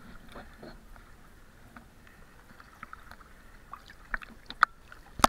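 Faint water splashing and lapping with scattered small knocks, and a few sharper clicks near the end.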